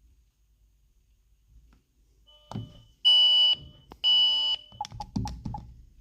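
Ring Alarm security system sounding two loud, high-pitched electronic beeps about a second apart, each about half a second long, followed by a few short clicks and knocks.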